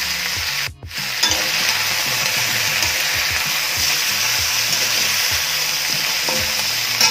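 Potato, raw banana and drumstick pieces sizzling in hot mustard oil in a pan while a metal spatula stirs them, with a few light scrapes. The sizzle drops out for an instant just before a second in.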